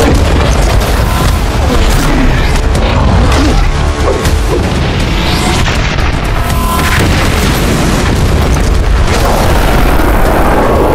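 Booming impact and explosion sound effects layered over loud, dense action music.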